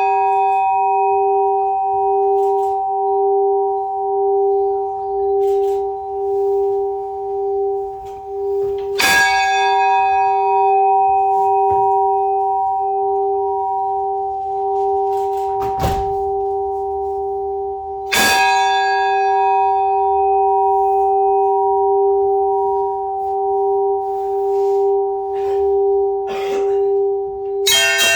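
A large Orthodox church bell struck slowly, about once every nine seconds, each stroke leaving a long, wavering hum: ringing to call the faithful to a service. Near the end a quick peal of smaller bells breaks in over it.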